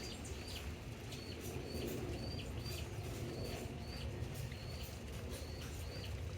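A chick crying: high, short peeps about twice a second, each dropping in pitch at its end.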